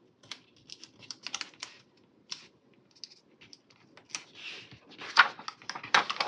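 Sticker sheets and planner paper being handled: short scattered clicks and light taps, then louder paper rustling near the end.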